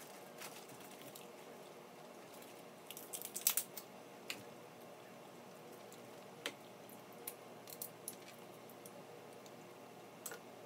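Snow crab legs being cracked and pulled apart by hand: scattered sharp shell cracks and clicks, with a quick cluster of them about three seconds in.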